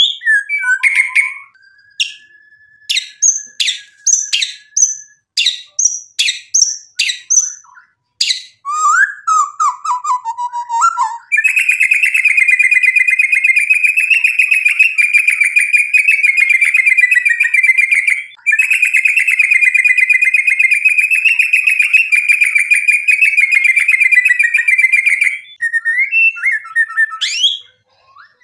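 White-rumped shama singing: a string of sharp whistled notes and chips, then a falling phrase, then a long, fast, even trill of about fourteen seconds, broken once for a moment, before more short notes near the end.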